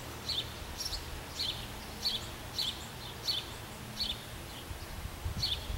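A bird repeating a short, high chirp roughly every half second or so, over a low steady rumble of outdoor background noise.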